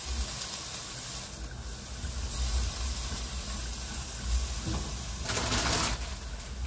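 Steady hiss and sizzle of food frying in a pan, with a louder rush of noise for about a second and a half near the end.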